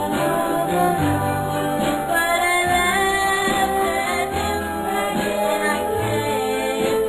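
1963 pop single playing: a woman singing over a band, with a steady beat and a moving bass line.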